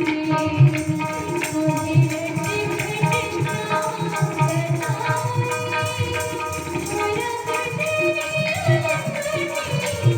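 Tabla playing a steady rhythm under held melodic notes from accompanying instruments, in an instrumental passage of a Hindi song.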